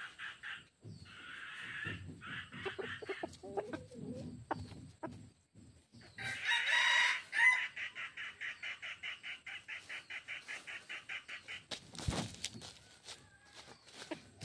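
Red junglefowl rooster crowing once loudly about halfway through, with clucking and pulsed calls around it. A long run of quick, evenly spaced pulses, about eight a second, follows the crow, and a single sharp knock comes near the end.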